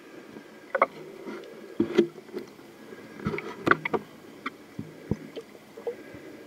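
Underwater handling noise from a waterproof camera going under the pond surface: irregular sharp clicks and knocks with water sloshing, the loudest knocks about two seconds in and just before four seconds.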